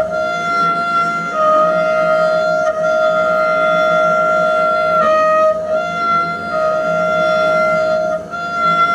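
Double bass bowed in a sustained high drone, its pitch stepping back and forth between two close notes every second or two.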